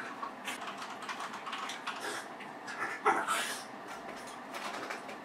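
Pet rats shifting and scratching in a fleece bed: soft rustling with light, irregular clicks, and a louder rustle about three seconds in.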